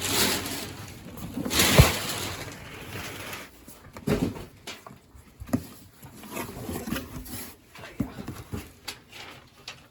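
Paper and plastic packaging rustling loudly twice in the first two seconds, then scattered light clicks and knocks as small engine rebuild parts are handled.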